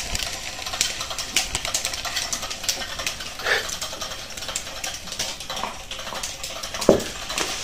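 Small electric motor of a battery-powered butterfly cat toy running steadily, with scattered clicks as the wire-mounted butterfly spins and is batted. A short higher sound about halfway through, and a sharp knock near the end.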